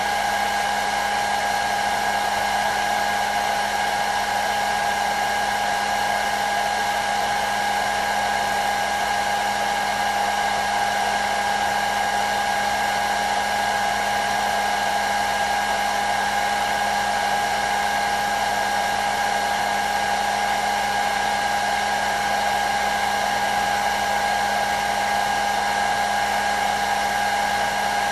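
Hair dryer running steadily: an even rush of air with a constant whine from its motor.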